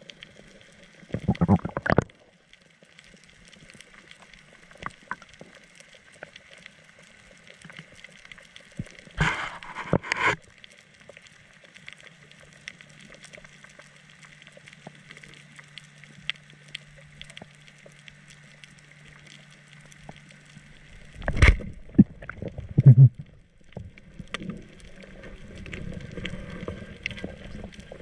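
Underwater sound picked up by a camera in a waterproof housing during a freedive along a reef: low muffled water noise broken by three loud bursts of rushing and bumping, about one second in, near ten seconds and just past twenty-one seconds, where it opens with a sharp knock. A steady low hum runs through the middle for about nine seconds.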